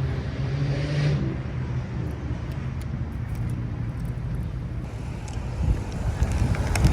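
A car engine running with a steady low hum, followed by a low rumble.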